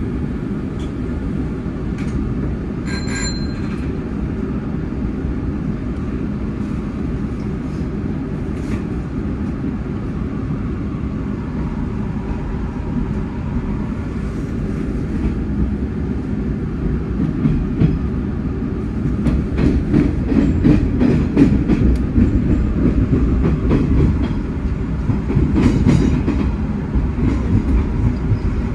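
Hanshin 9300-series electric train pulling away and running over pointwork, heard from inside the driver's cab: a steady low rumble of the running gear, with a short high beep about three seconds in. In the second half the rumble grows louder and a long run of sharp wheel clicks comes over the points.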